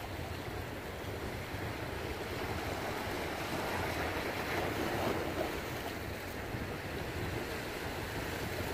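Ocean surf washing in on the jetty rocks, a steady rushing of waves, with wind buffeting the microphone.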